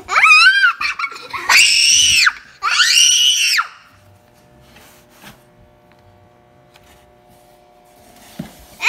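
A young child's high-pitched playful squeals, three in quick succession, each rising and then falling, from inside a cardboard box; then quiet.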